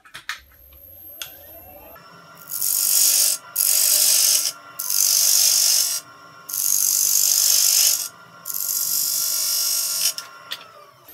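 A wood lathe motor spins up with a rising whine, then runs steadily. A spindle gouge cuts the spinning wooden disc in five passes, each a loud scraping hiss lasting about a second, truing the disc round. The motor winds down near the end.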